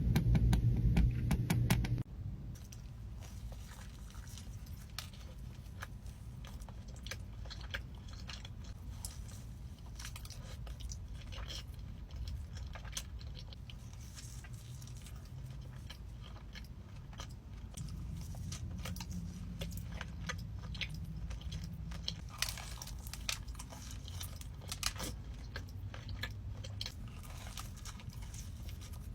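Close-up eating sounds: chewing and biting into crunchy food, with many small crackles and clicks. A louder, steadier sound fills the first two seconds and stops suddenly.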